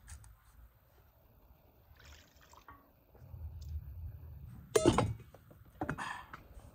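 Food-handling sounds: soft, quiet handling of boiled beef tripe pieces and a block of butter in a bowl. A sharp knock comes about five seconds in, and a second, shorter one follows about a second later, as a steel pot lid is handled.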